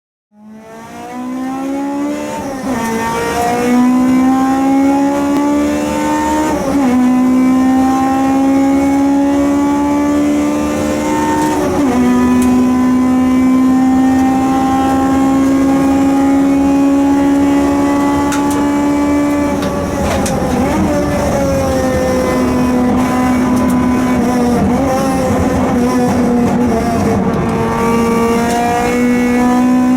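Honda Accord Euro-R's 2.0-litre K20A VTEC four-cylinder engine at full throttle on track, climbing in pitch and dropping with each upshift three times, holding a long pull, then falling through a run of downshifts under braking before climbing again near the end. The owner notes an exhaust leak on the car.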